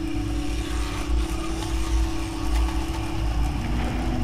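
O gauge model train running along the track: a steady hum with a low rumble underneath.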